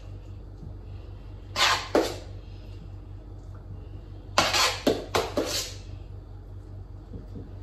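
Metal spoon scraping and knocking against a stainless steel pot while scooping mashed potato, in two short clusters of clinks about a second and a half in and again about four and a half seconds in, over a steady low hum.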